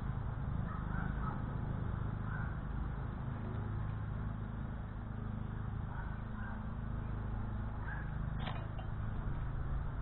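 Steady low outdoor rumble with faint, scattered bird calls, and a single sharp click about eight and a half seconds in.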